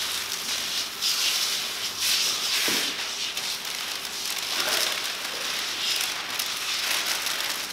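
Clear plastic release liner crackling as it is peeled off window tint film, with repeated hisses of a pressure spray bottle misting the film with soapy water.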